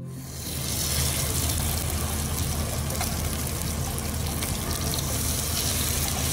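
Sablefish fillets sizzling steadily in hot oil in a skillet, with a steady low hum underneath.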